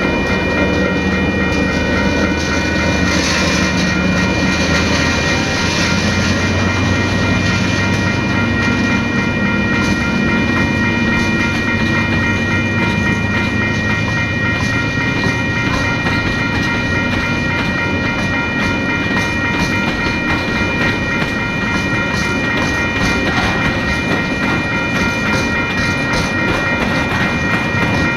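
TasRail diesel freight train passing at close range: the locomotive's engine hums low in the first half, then the wagons roll by with a rising clickety-clack of wheels over rail joints. A steady high whine runs through it all.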